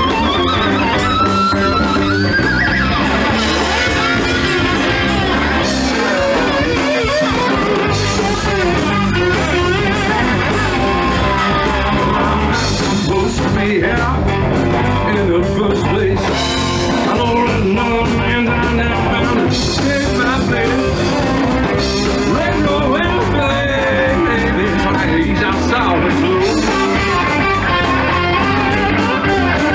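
Live rock band playing, with electric guitars and a man singing lead.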